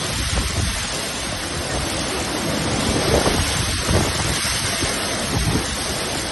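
Heavy monsoon rain and wind: a steady rushing hiss with irregular low rumbling from wind gusting against the microphone.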